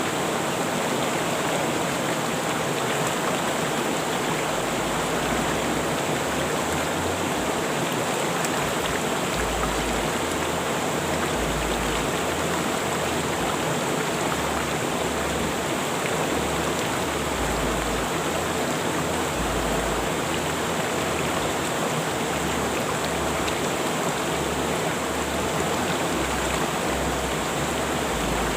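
River water rushing steadily, a dense even flow with no pauses or changes.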